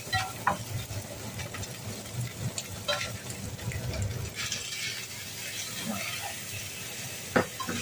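Spatula scraping and clicking against a stainless frying pan of browned minced pork, with tofu cubes tipped in from a bowl about four seconds in, followed by a short sizzling hiss. A single sharp knock near the end is the loudest sound.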